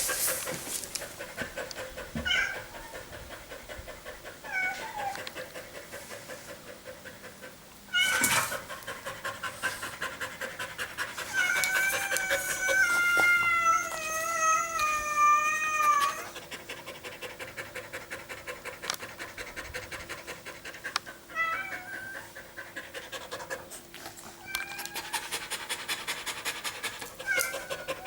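Dog panting fast and evenly, quick short breaths in and out, from heat and exertion after a run. Around the middle a high drawn-out tone slowly falls over about four seconds, and short high chirps come now and then.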